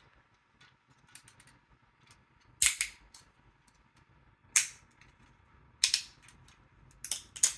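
3D-printed plastic snapping and cracking as the raft is broken away from the print: four loud sharp cracks, several doubled, about a second or two apart, with faint clicks and ticks in between.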